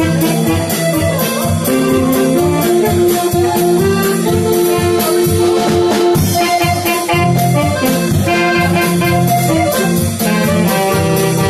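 Small live dance band playing an instrumental tune: tenor saxophone with drum kit and electric guitar, over a steady beat.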